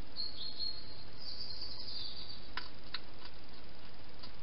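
Steady hiss from the night camera's microphone. Over it come faint, high, thin chirps in the first half and a few crisp clicks a little past halfway.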